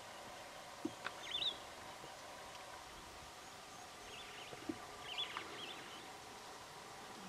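A bird calls in short warbling whistles, once about a second in and again about five seconds in, over a faint steady hum of outdoor background sound. A few soft knocks come just before each burst of calls.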